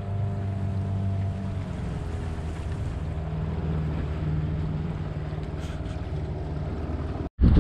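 Small motorboat's engine running steadily under way, with a low hum over the splash of water and wind; its note shifts slightly about two seconds in. Near the end the sound cuts off abruptly, followed by a brief loud low thump.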